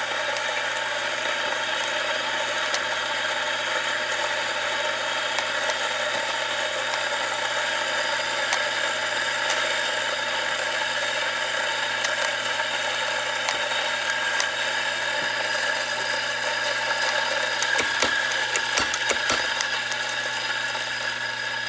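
Macap espresso grinder running steadily, its motor and burrs turning at a fine grind setting near the zero point. A few sharp clicks come through in the last few seconds.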